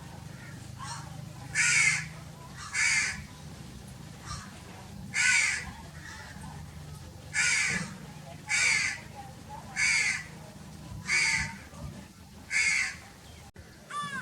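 Crow cawing repeatedly: about eight harsh caws, each roughly half a second long, spaced one to two seconds apart.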